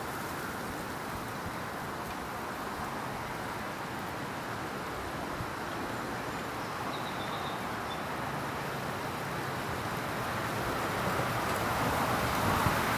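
Steady rushing outdoor background noise with no distinct events, growing a little louder over the last two seconds or so.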